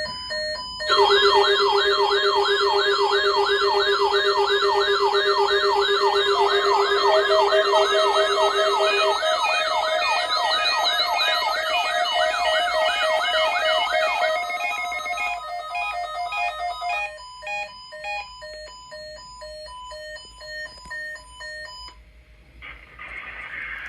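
Weather radio warning alarm sounding for a weekly test: a fast warbling siren-like tone, about three sweeps a second, over a steady low tone and several beeping tones at different pitches. The warble stops about 14 seconds in, and the beeps grow fainter and stop about 22 seconds in.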